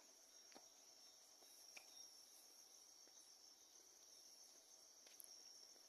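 Faint, steady high-pitched chirring of crickets, with a few soft clicks.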